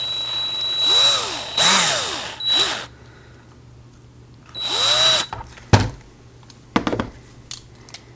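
Small power drill drilling out the rivet heads on the base of a die-cast Hot Wheels car, run in short trigger bursts that rise and fall in pitch: three bursts in the first three seconds and one more about five seconds in. Two sharp knocks follow near the end.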